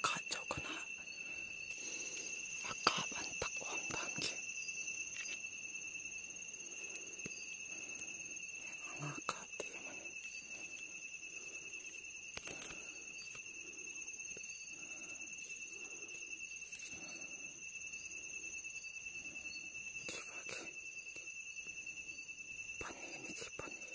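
Night insects trilling steadily at two high pitches, with a few brief rustles of brush and leaves, more of them in the first few seconds.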